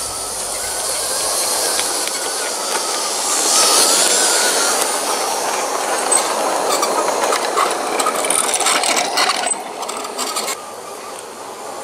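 Bachmann G scale 4-6-0 model steam locomotive running on LGB track, its motor and gearing whirring louder as it comes close, loudest about four seconds in. As the cars pass there is a run of clicking from the wheels over the rail joints, then the sound drops as the train moves away.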